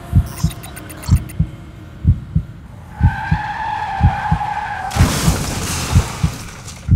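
Sound-effect heartbeat, a low lub-dub about once a second, under tyres screeching from about three seconds in, followed about two seconds later by a harsh noisy burst of a car crash.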